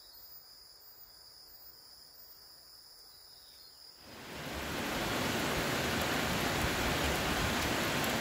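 Faint steady high-pitched insect trilling, then about halfway through a cut to a louder, steady rushing of running water.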